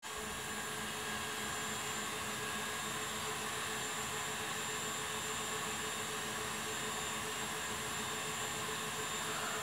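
Steady hiss with a faint steady hum: room tone with no distinct event.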